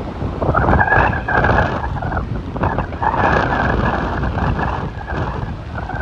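Strong wind buffeting the microphone in gusts, over the steady rush of heavy surf breaking on the beach below.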